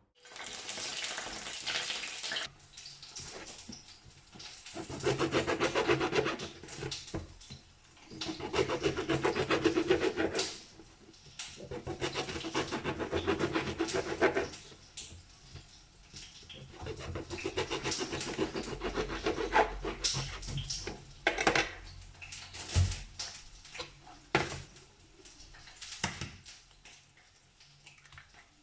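Kitchen utensil working in a bowl: three bursts of rapid, rhythmic scraping a few seconds each, followed by scattered clinks and knocks of dishes.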